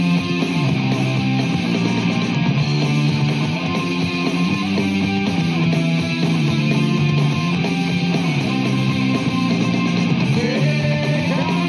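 Background rock music with guitar in an instrumental passage, without singing.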